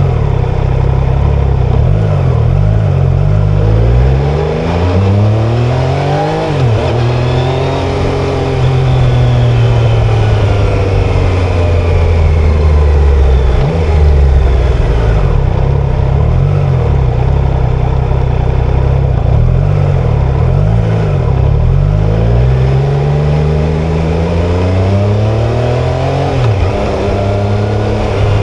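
Triumph Tiger Sport 660's 660 cc inline-three engine and exhaust accelerating on the road. The pitch climbs for a few seconds and drops sharply at a gear change, about a quarter of the way in and again near the end, and falls more slowly in between as the throttle eases, over a steady rush of noise.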